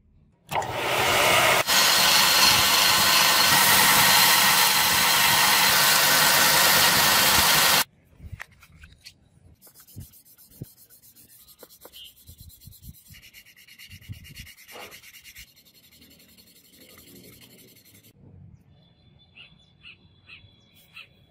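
Scroll saw running loudly and steadily as it cuts a small sword-guard piece, then stopping abruptly. This is followed by much quieter, uneven rubbing as the piece is sanded by hand on a sheet of sandpaper.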